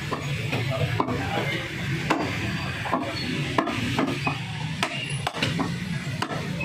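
Irregular sharp knocks, about one or two a second, of a knife and buffalo meat against a wooden chopping block as the meat is trimmed by hand, over a steady low hum.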